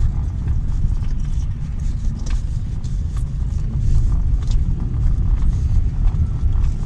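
Lada Vesta's dashboard panel creaking in frosty weather while the car is driven: short, irregular creaks and ticks over a steady low road and engine rumble inside the cabin.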